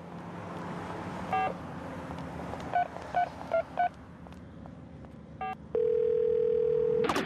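Telephone keypad beeping as a number is dialled: six short beeps, four of them in quick succession, then a steady phone line tone of just over a second, all over a low steady background hum. The tone cuts off with a sudden hit near the end.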